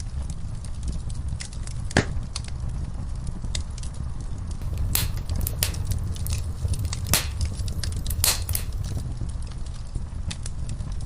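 Wood fire in a fireplace crackling: a steady low rumble of flames under frequent sharp crackles and pops from the burning logs. A single loud pop comes about two seconds in, and a run of louder pops follows in the middle.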